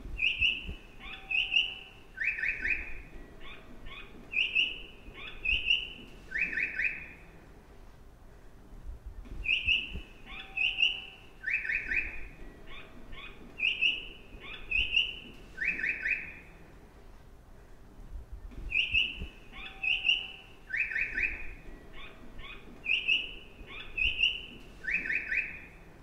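Recorded bird chirps from a train-station speaker, the audible guide that marks stairs for vision-impaired passengers. A phrase of high chirps about five seconds long repeats as an identical loop roughly every nine seconds, over a faint low rumble.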